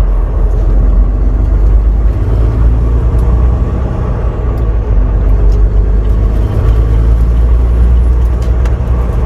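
Semi-truck diesel engine and road noise heard from inside the cab while driving: a steady, loud low drone.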